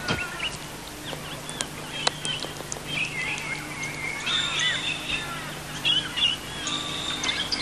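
Several birds chirping and calling in short rising and falling whistles, over a faint steady low hum.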